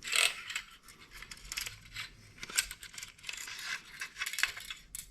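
B&T KH9SD parts being handled and slid apart during a field strip: irregular light clicks, taps and scraping of the parts against each other.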